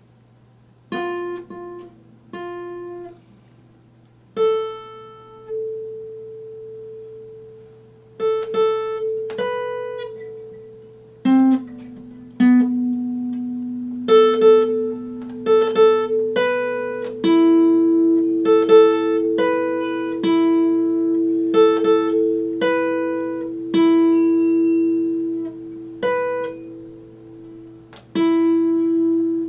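Epiphone acoustic guitar, single strings plucked one at a time and left to ring, the first note about a second in and the notes coming closer together later. A steady low hum runs underneath.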